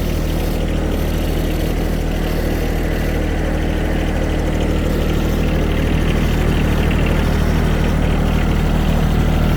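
Farm tractor engine running at a steady, unchanging speed while the tractor is driven along.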